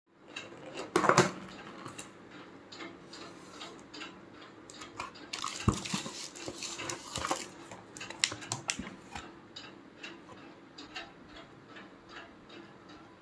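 A cardboard takeaway food box and its foil-sealed compartments being handled and opened: scattered knocks, clicks and rustles of cardboard and foil. It is loudest about a second in and again around the middle.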